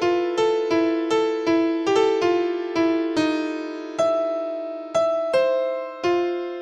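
Background music: a simple melody on an electric piano-like keyboard, played one note at a time. Each note is struck and dies away, about three a second, slowing to a few longer held notes in the middle.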